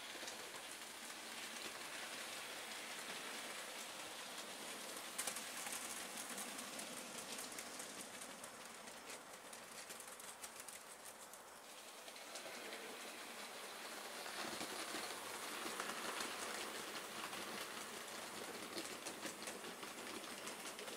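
Bachmann OO-gauge LNER Robinson O4 model locomotive and its slate-loaded wagons running on the track: a steady rattling hiss of small wheels with rapid fine clicks over the rail joints. It grows louder for a few seconds about two-thirds of the way through as the train passes close.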